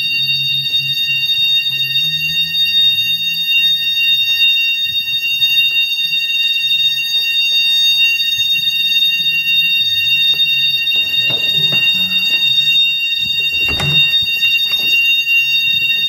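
Fire alarm sounders of a Morley IAS fire alarm system sounding a loud, continuous high-pitched tone, the system put into alarm during commissioning testing. A couple of sharp thumps come near the end.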